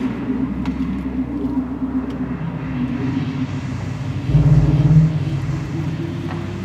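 Live electronic synthesizer music: sustained low drone tones under a noisy, engine-like texture, with a louder, deeper swell about four seconds in that lasts under a second.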